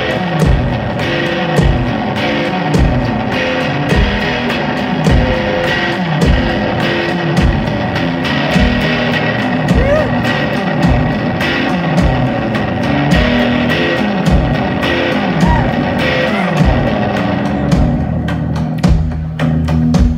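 Live rock music: electric guitar and drum kit playing loudly, with a steady beat of low drum thumps under the guitar. The guitar and cymbals thin out near the end while the low drums carry on.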